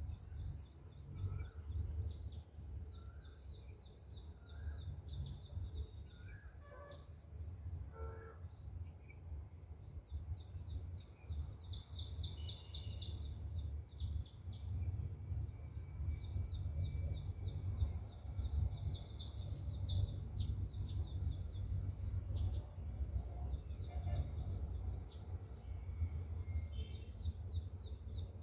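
Birds chirping rapidly and high-pitched, in bursts that come and go, over a steady low rumble. A few short, lower calls sound in the first several seconds.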